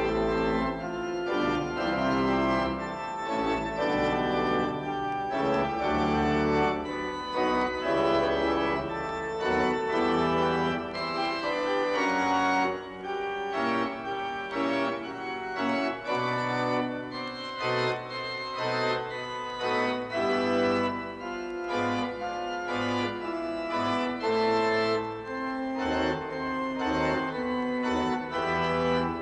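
Organ music: held chords over a moving bass line.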